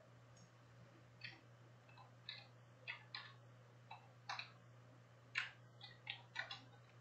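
Faint, irregular clicks and taps of computer keyboard keys, about a dozen spread over a few seconds, over a low steady electrical hum.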